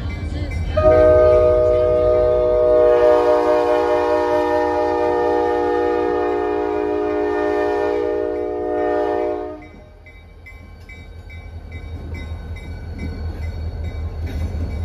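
A diesel locomotive's air horn sounds one long chord of about nine seconds, then cuts off suddenly. After it, the grade-crossing bell rings steadily over the locomotive's low engine rumble, which grows louder as the engine rolls across the road.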